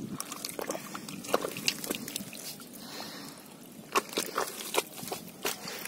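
Muddy water sloshing and squelching as a hand gropes through a shallow mud hole among catfish, with irregular wet slaps and splashes, several sharper ones in the second half.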